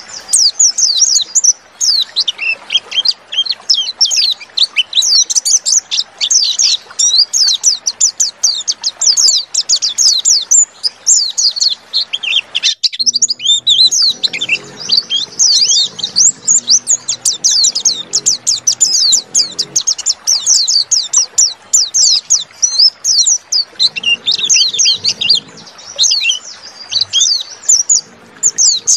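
White-eye (pleci) song: a long, fast, near-continuous twittering of rapid high chirps, with a short break about halfway through. It is a lure song, played to prompt caged white-eyes to start singing.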